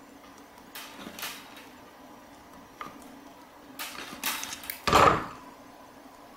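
Hand crimping pliers working a ring terminal onto a wire: a few sharp metallic clicks and clacks, then one louder knock about five seconds in.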